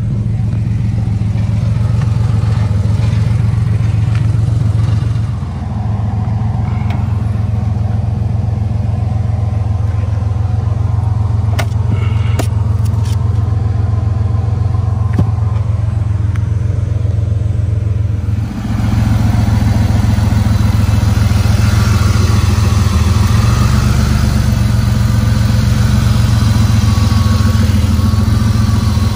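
Porsche 964's air-cooled flat-six idling steadily, with a few light clicks about twelve seconds in. About eighteen seconds in the idle turns louder and brighter, heard up close at the open engine lid.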